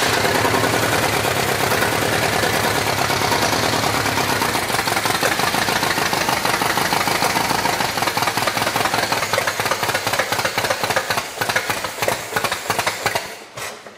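Chevy 350 small-block V8 in a Farmall H tractor, running rough and uneven through open upright exhaust stacks. The owner suspects a burnt valve or timing trouble. Near the end it stumbles and dies, starved of fuel.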